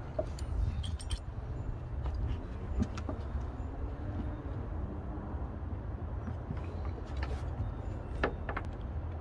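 Handling noise from a network cable and its plug being worked through a hole in a boat's rod locker: scattered light clicks and rattles, with a couple of sharper clicks about eight seconds in, over a steady low rumble.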